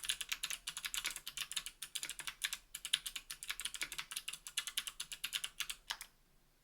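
Fast typing on a 60% mechanical keyboard with NK_ Sherbet clicky clickbar switches in an aluminium case and plate, under GMK keycaps: a quick, steady run of crisp clicking keystrokes that stops about six seconds in.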